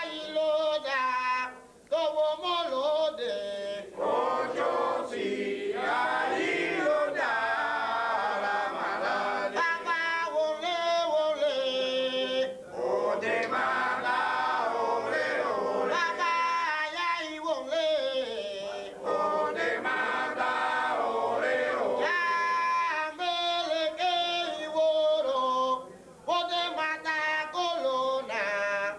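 Afro-Cuban rumba singers chanting together in chorus, several voices at once, with short breaks about two seconds in and a few seconds before the end.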